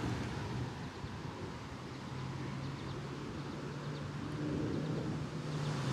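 Quiet outdoor background: a low steady hum of distant traffic, with a few faint bird chirps about two and a half seconds in.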